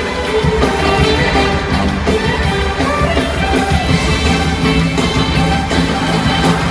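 Loud music with held notes changing every half second or so, heard from the audience stands of an arena show.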